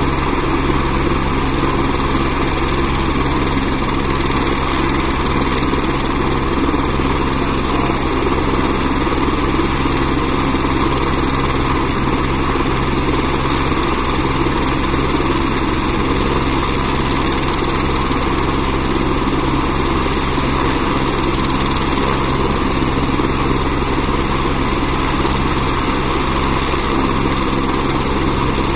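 Helicopter idling on the ground with its rotor turning: a loud, steady engine and rotor noise that does not change.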